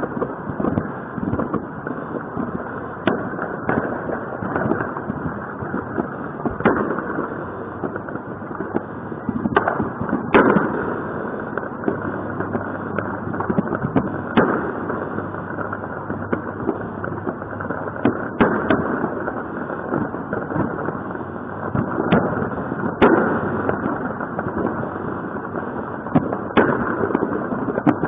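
Fireworks going off: a dozen or so sharp bangs a few seconds apart over a continuous dense rumble and crackle of many more fireworks in the distance.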